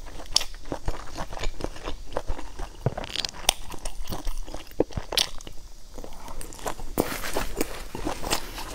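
Close-miked eating sounds: a mouthful of chewy food in chili-oil sauce being chewed, with wet smacks and clicks at an irregular pace.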